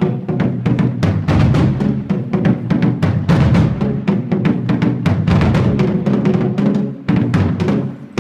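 Marching drumline playing: rapid snare strokes over pitched bass drums in a dense, driving rhythm, with a brief break about seven seconds in.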